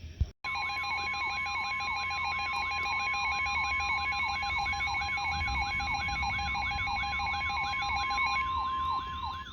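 Electronic emergency alert tones, heard between broadcast warnings. A steady two-note tone is layered with a siren-like sweep that rises several times a second. They start after a short click near the beginning, and the lower steady note drops out near the end while the sweeping tone carries on.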